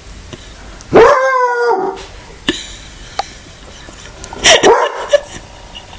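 Walker hound giving one of its first howls: a drawn-out howl about a second in that lasts about a second and sags slightly in pitch, then a second, shorter call with a falling pitch about four and a half seconds in.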